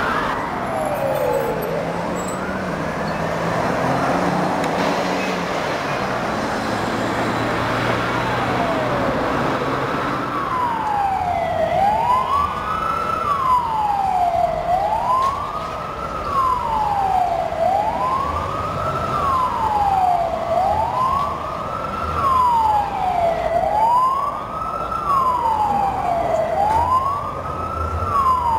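Emergency vehicle siren wailing. For about the first ten seconds it rises and falls slowly, then it settles into a steady up-and-down cycle about every two seconds, with a second, fainter siren sweeping behind it.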